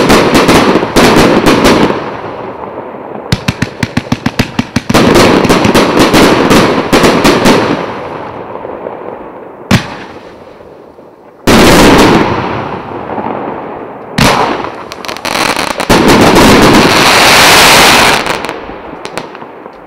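A 250-shot fan-pattern fireworks cake ('Premiera', 1 to 1.25 inch shots) firing: runs of rapid launch thumps, several a second, each followed by loud bursts and crackling stars. It fires in waves with short lulls and a lone bang near the middle, building to a dense crackling volley that fades out near the end.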